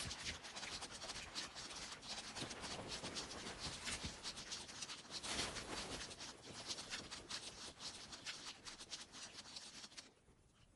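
Rain falling on wet pavement and an umbrella: a dense crackle of many small drops that falls away sharply near the end.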